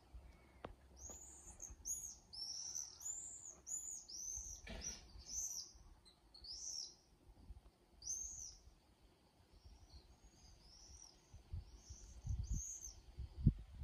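Common swifts screaming in flight: a run of short, shrill, very high screams, thickest in the first seven seconds and fewer and fainter after that. A few low thumps near the end.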